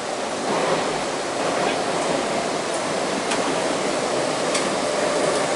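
Steady hiss and hum of a stationary JR Central electric commuter train, its onboard equipment running.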